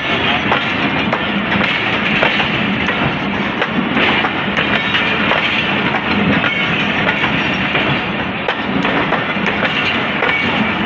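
Pakistan Express passenger coaches rolling past at close range: a steady rumble of wheels and running gear, with frequent clicks and clacks of the wheels over the rail joints.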